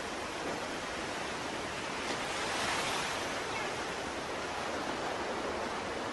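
Ocean surf: a steady rush of waves, with one wave swelling and fading away about two to three seconds in.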